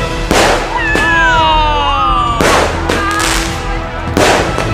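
Fireworks: three loud bangs of aerial shells bursting, about two seconds apart, with a whistle falling in pitch between the first two.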